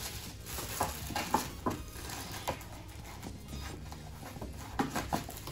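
Plastic grocery bags rustling and food packaging being handled, with a few short crinkles and light knocks.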